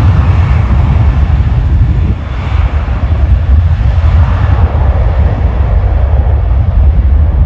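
Airliner engines passing close by: a loud, deep rumble with a hiss above it, the higher part fading over the last few seconds as the aircraft draws away.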